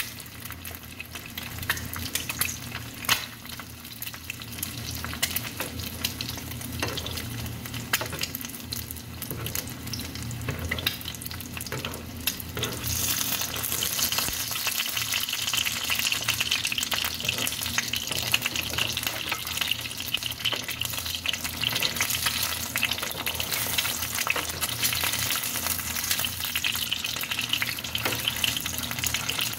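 Egg sizzling as it fries in a small frying pan, with a metal spoon clicking and scraping against the pan as it is stirred into scrambled egg; the sizzle grows louder about halfway through. A steady low hum runs underneath.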